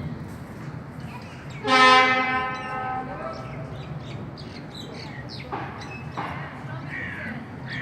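A horn sounds once, a steady blast of just over a second about two seconds in. Near the end, a crow caws a few times.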